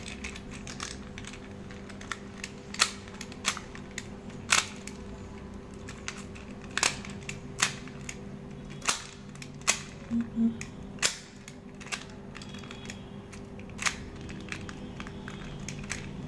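Hard plastic transforming robot toy car clicking and tapping as a hand presses and moves it on a tile floor: a dozen or so sharp, irregular clicks.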